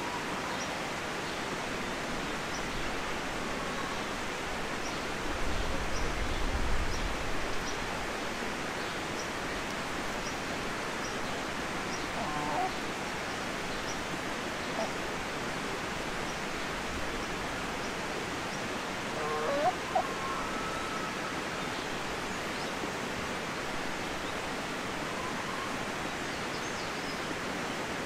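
Rural outdoor ambience: a steady hiss underneath a few short poultry calls, one about twelve seconds in and a pair about twenty seconds in, with faint high chirps throughout. A low rumble rises about five seconds in and fades by eight seconds.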